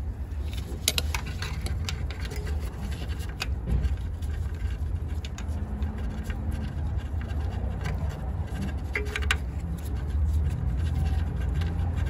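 Scattered small clicks and scrapes of hand work on parts around the engine, over a steady low rumble.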